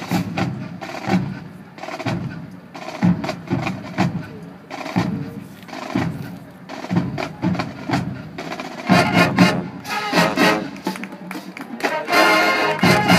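High school marching band playing on the field: drums beat out a steady rhythm, and the brass comes in fuller and louder about nine seconds in.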